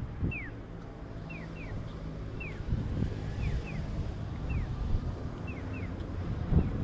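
Street ambience: a low rumble of wind on the microphone and a running engine, with a few soft thumps. Over it, faint short chirps sweep downward about once a second, often two close together.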